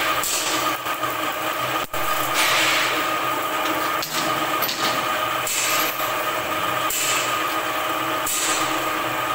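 A machine running with a steady hum, and a hissing swish repeating about every second and a half. A sharp click comes about two seconds in.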